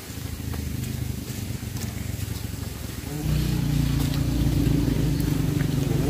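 An engine running steadily, growing louder and slightly higher about three seconds in.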